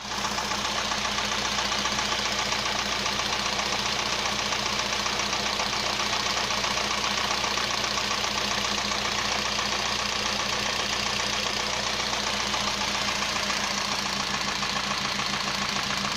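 Car engine idling with a rapid, steady knocking from the top end, which the uploader takes for the piston striking the cylinder head; the speaker blames hydraulic lash adjusters that have not yet pumped up with oil.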